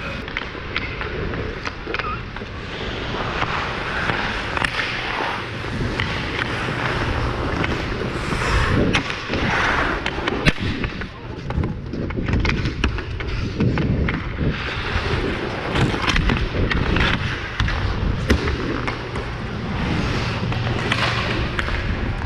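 Ice-hockey skates carving and scraping across rink ice, with frequent sharp clacks of sticks and puck and thuds along the boards during play.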